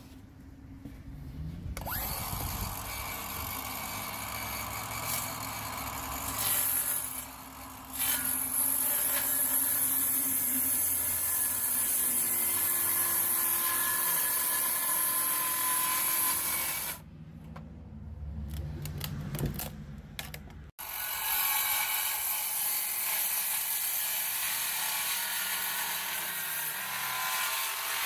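Brushless Milwaukee M18 Fuel 7-1/4-inch cordless circular saw cutting through wood, its blade running steadily through a long cut. About two-thirds of the way in the sound drops for a few seconds, then a second cut starts and runs on.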